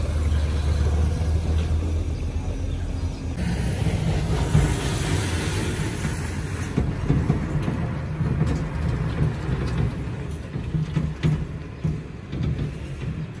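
Diesel dump truck driving past close by: a low engine rumble, then a rush of engine and tyre noise that swells a few seconds in and slowly fades as the truck moves away.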